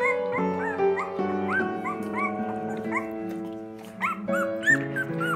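Background music with held notes, and over it a run of short, high puppy whimpers that rise and fall in pitch, two or three a second.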